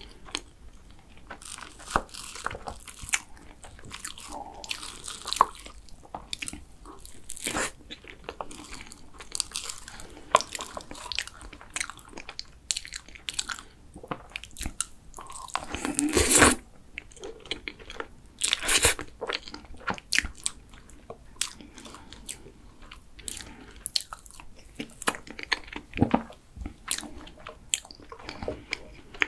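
Close-miked eating of soft tiramisu box cake: chewing and wet mouth sounds with many short sharp clicks, as a metal spoon taps and scrapes a clear plastic cake cup. One louder, longer noise comes about halfway through.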